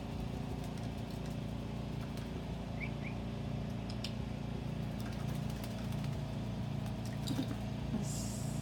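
Steady low mechanical hum, with faint clicks, two short high chirps about three seconds in, and a brief hiss near the end.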